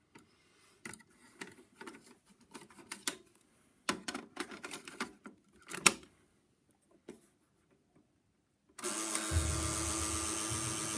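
Sony cassette deck being operated: a run of mechanical clicks and clunks from its keys and cassette mechanism for about six seconds, then a pause. About nine seconds in, tape playback starts: music with steady hiss and mains hum.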